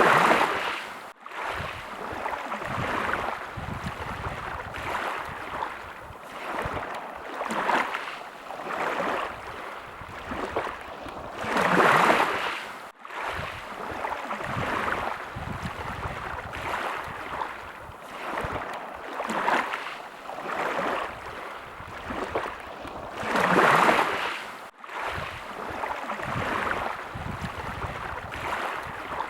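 Sea waves washing in, the noise swelling and ebbing, with three larger waves about twelve seconds apart and smaller swells between. Each large wave is followed by a momentary break in the sound.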